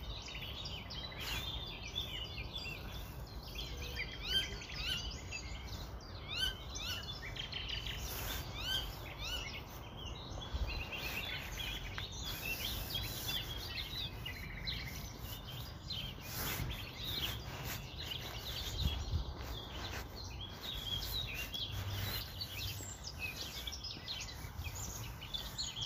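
Birds chirping: many short, overlapping chirps throughout, over a faint low rumble.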